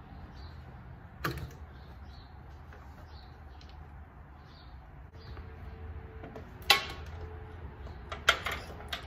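Metal clanks and knocks as a baler's PTO driveline is worked off a tractor's rear PTO shaft: a knock about a second in, a loud clank near seven seconds, and two more clanks near the end.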